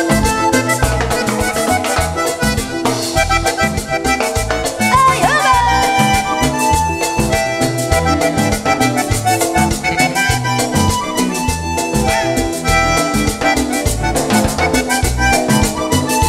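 Button accordion playing a lively instrumental passage over the band's steady percussion and bass, with no singing.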